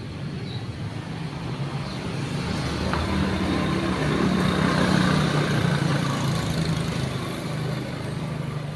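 A motor vehicle passing by: its engine and road noise build to a peak about halfway through, then fade.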